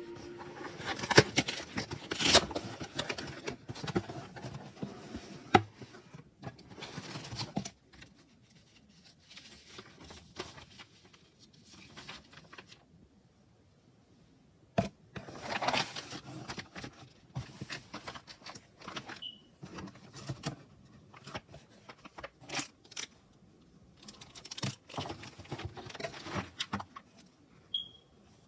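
Hands opening a shipping package: packaging rustling and scraping, with taps and clicks, in uneven bursts and a quieter stretch about halfway through.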